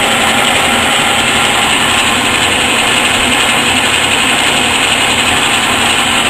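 Old South Bend metal lathe running steadily under power: an even, unbroken mechanical whir from its electric motor and drive.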